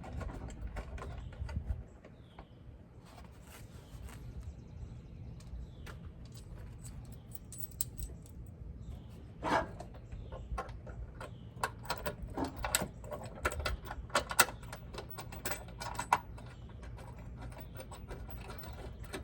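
Irregular metallic clicks, clinks and scrapes of bolts and bracket hardware being handled and worked into a truck step rail's mounting holes. They are sparse at first and come thicker from about halfway through, with one louder knock.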